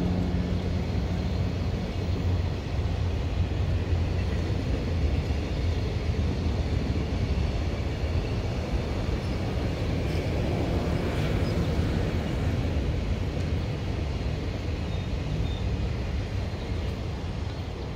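Freight train passing: a steady rumble of wagons rolling over the rails, with the locomotive's pitched hum fading away in the first second or so. The rumble eases off slightly near the end.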